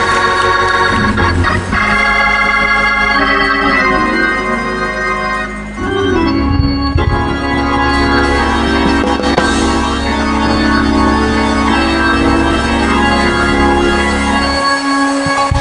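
Church organ playing sustained chords over a held bass, the chords changing every few seconds; the bass drops out near the end.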